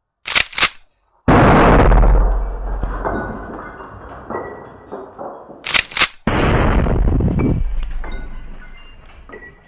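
Homemade cannon firing twice. Each shot is a quick pair of sharp cracks and then a loud blast that dies away over a few seconds, with small scattered clicks in its tail. The second shot comes about five seconds after the first.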